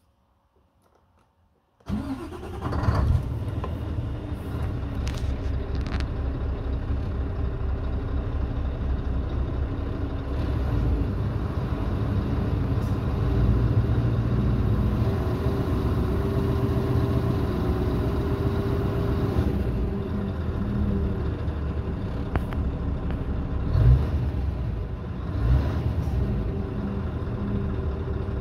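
Scania R580's V8 diesel engine starting about two seconds in: it catches at once, swells briefly, then settles into steady running. Two short louder blips come near the end.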